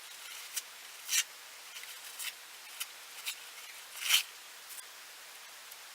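Paper towel being torn into pieces: a string of short, dry rips, the longest about a second in and about four seconds in.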